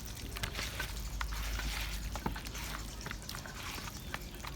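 Raw chicken pieces being mixed by hand with a seasoning mix in a bowl: irregular rustling and small clicks.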